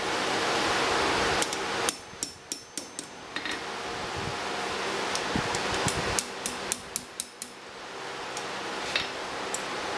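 Hand hammer striking a small metal ring held in tongs on an anvil: a quick run of about six sharp metallic blows, a pause, a second run of about five, then two lone taps near the end.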